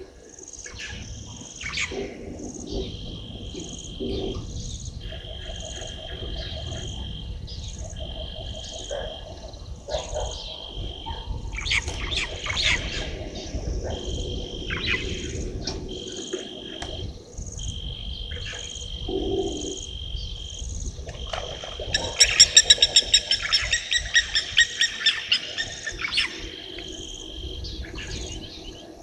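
Waterhole night chorus: short high calls of frogs and insects repeating about once a second over a low steady rumble. About 22 seconds in comes a loud, fast series of rattling animal calls that slows and fades over about four seconds.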